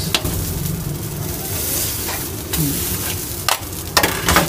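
Chicken pieces sizzling on a flat griddle, with a few sharp metal clacks as steel spatula blades chop the meat against the hot plate, most of them near the end.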